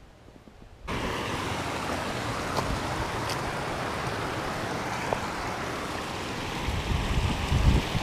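Steady rush of water spilling over a small concrete weir, starting abruptly about a second in. Low rumbling on the microphone builds near the end.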